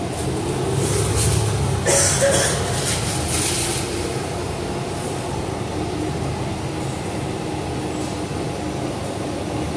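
Steady low rumble of a moving city bus heard from inside the passenger cabin, with a brief louder noisy burst about two seconds in.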